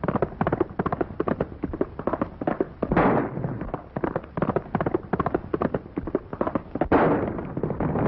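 Rapid hoofbeats of horses at a full gallop, with two sharp gunshots, about three seconds in and near the end; after the second, the hoofbeats thicken into the rumble of many horses.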